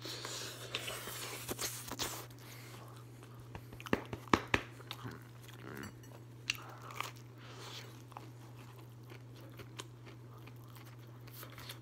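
A person chewing and biting a mouthful of pizza close to the microphone, with irregular wet mouth noises and a cluster of sharp smacks about four seconds in. A steady low hum runs underneath.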